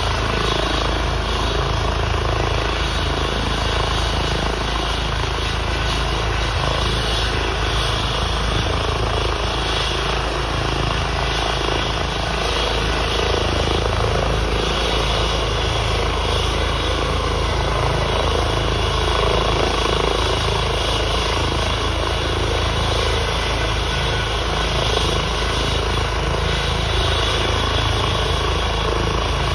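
Twin-turbine Airbus H135 (EC135) air ambulance helicopter running on the ground with its rotor turning: a steady high turbine whine over low rotor noise, holding even throughout.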